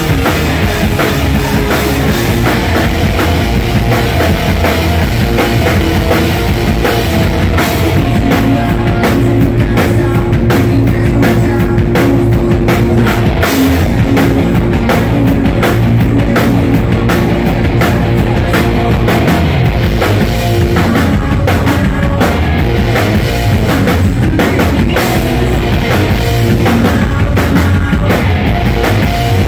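A rock band playing loud and without a break: distorted electric guitars over a pounding drum kit, with a lead singer singing at the microphone.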